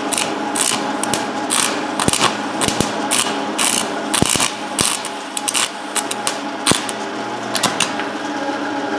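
Stick-welding arc on a 7018 electrode crackling and popping in irregular spurts that flare and drop out, over a steady hum. The rod will not run properly on this welder.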